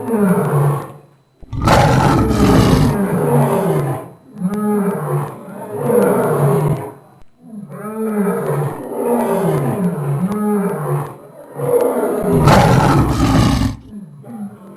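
Lion roaring sound effect: a series of deep roars, with two long rough ones about two seconds and twelve seconds in, and shorter grunting calls in between.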